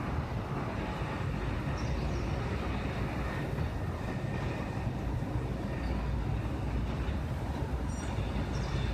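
Steady low rumbling noise, like a moving vehicle or train, with a few faint, brief high squeaks about two seconds in and near the end.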